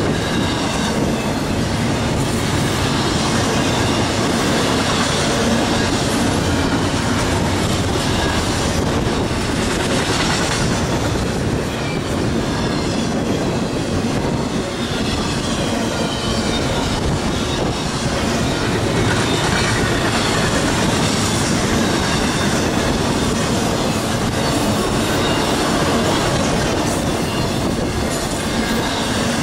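Double-stack intermodal freight train cars rolling past at steady speed: continuous noise of steel wheels on rail, with faint high wheel squeal at times.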